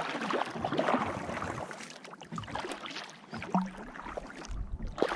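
Kayak paddle dipping and splashing in calm lake water, with drips and small knocks, louder in the first second or two and then quieter.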